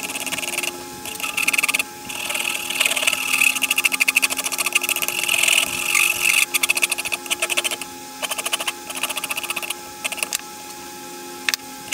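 A metal file dragged in quick back-and-forth strokes along a wooden hatchet handle, rasping off its thick old finish. The rasping stops briefly a few times, then resumes.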